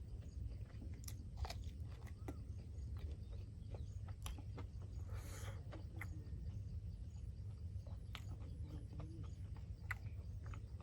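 A person eating pork curry and rice close to the microphone: chewing with wet mouth clicks and lip smacks, over a steady low hum. About five seconds in there is a brief breathy hiss.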